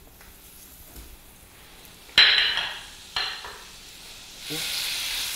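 Butter sizzling in a hot stainless-steel sauté pan over medium heat as it melts. Two sudden sizzles about a second apart each fade away, then a steady sizzle sets in near the end.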